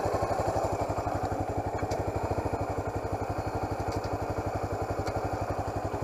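Honda CB motorcycle engine running at low, steady revs, with an even, rapid pulse of firing strokes.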